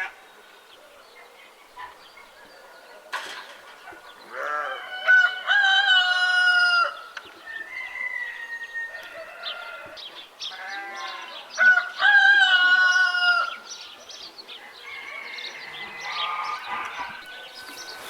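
A rooster crowing twice, each crow a long call of about two and a half seconds, with fainter short chicken calls in between.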